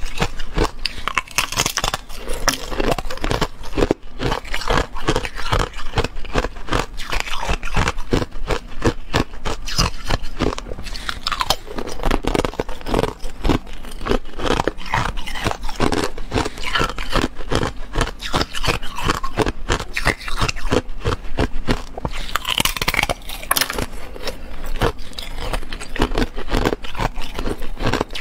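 Close-miked crunching of hard clear ice as it is bitten and chewed: a dense, irregular run of sharp cracks and crunches throughout.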